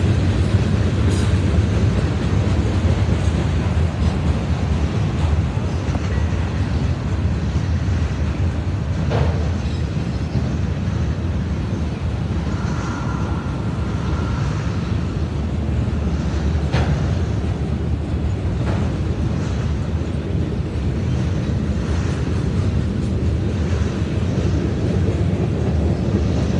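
Mixed freight train cars (tank cars, boxcars, autoracks) rolling steadily past: a continuous low rumble of steel wheels on rail, with a couple of faint clicks.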